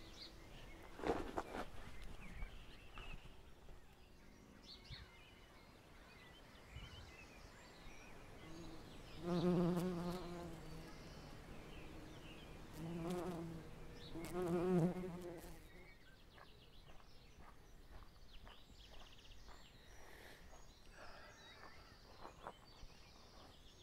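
Bumblebee buzzing in flight, in three spells of about a second each, roughly nine, thirteen and fifteen seconds in. There is a brief knock about a second in.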